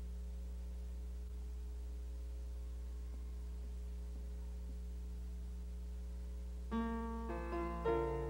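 A steady low electrical hum, then about two thirds of the way in a piano starts playing chords, the opening of an accompaniment.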